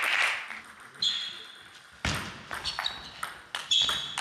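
Table tennis rally: a table tennis ball clicking off bats and table in a quick uneven series, with short high squeaks of shoes on the sports-hall floor. The tail of applause dies away in the first half second.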